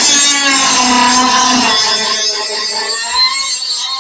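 A Makita XCM01 18V cordless 3-inch cut-off tool with a multi-material blade cuts into a pine 1x2. The motor's high whine wavers in pitch under the load of the cut, over the rasp of the blade through the wood.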